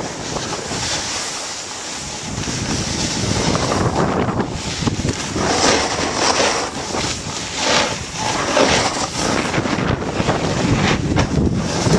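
Heavy wind rushing over the microphone of a camera moving fast down a snowy slope, gusting unevenly, mixed with the hiss and scrape of snow sliding under the rider.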